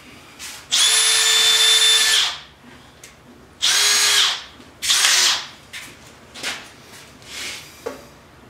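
Makita cordless drill run in several short bursts, the first about a second and a half long and the next two shorter, each a steady motor whine, then a few weaker brief pulls of the trigger.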